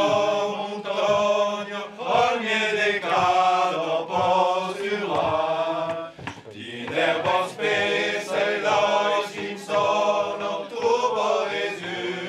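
A man singing a traditional Aubrac song unaccompanied, in held phrases of a second or two with short breaths between them.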